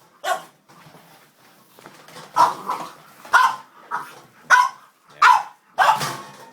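French bulldog barking, a string of short, sharp barks: one right at the start, then after a pause of nearly two seconds a run of about seven more, roughly one every half second.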